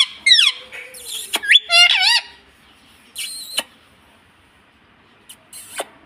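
Pet parakeets giving shrill chirps and a fast warbling call in the first two seconds, then a short harsh squawk, with a few light clicks near the end as they tug at a beaded rope toy.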